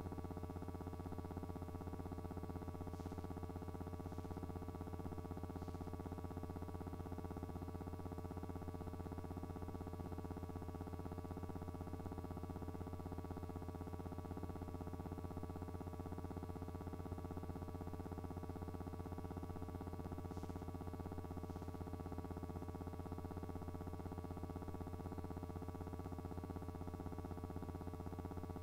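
A steady electrical hum: a low drone with a stack of fixed overtones that never changes, with a few faint clicks, not the sound of the aircraft on screen.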